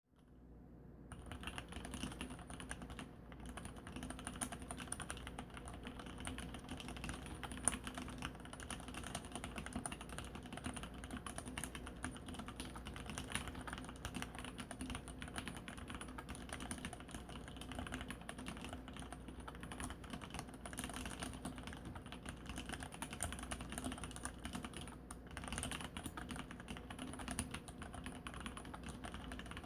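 Continuous typing on a mechanical keyboard with Cherry MX Black linear switches, their sliders lubed with Krytox 103 and fitted with 55g springs: a steady patter of key strokes that fades in over the first second.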